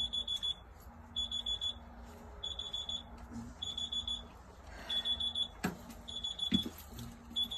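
A reminder alarm beeping over and over, a short pulsing beep about once every second or so; it is the beeping mistaken for the new car's. A couple of short knocks sound about two-thirds of the way in.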